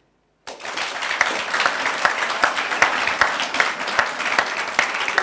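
Audience applauding: many hands clapping in a dense, steady patter that starts abruptly about half a second in.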